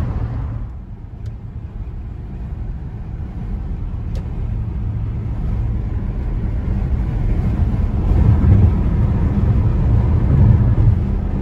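Car road and engine noise heard from inside the cabin at highway speed: a steady low rumble that dips briefly near the start and grows louder in the second half.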